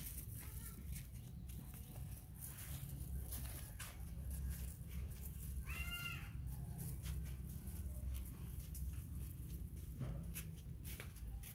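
Footsteps on a dirt path and a plastic bag of oranges rustling, over a steady low rumble. About six seconds in comes a single brief high call that rises and falls.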